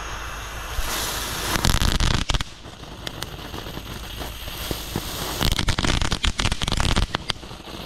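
Red Rhino Kids Garage novelty ground fireworks burning, spraying sparks with a rushing hiss in two loud spurts: one about a second in, and another past five seconds that is full of quick crackling pops.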